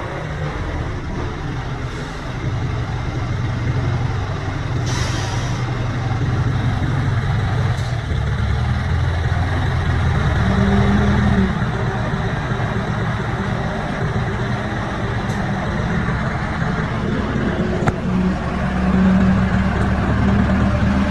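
Heavy diesel earthmoving equipment engine running with a steady low drone, its note rising twice under load: around halfway and again near the end. A short hiss about five seconds in.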